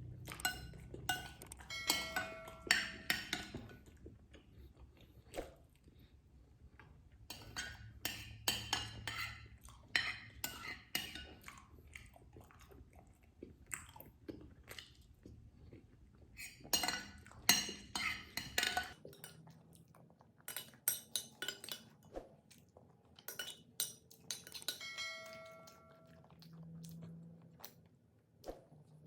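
A person eating with a spoon from a bowl, close to the microphone: chewing and wet mouth sounds, with small clicks and knocks of the spoon. Twice, a few seconds in and again near the end, the spoon clinks ringingly against the bowl.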